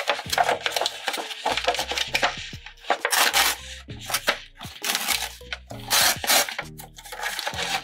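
Foil lid of an Ippudo instant ramen cup being peeled back and crinkled by hand, a run of irregular crackling, rustling bursts with short pauses. Soft background music runs underneath.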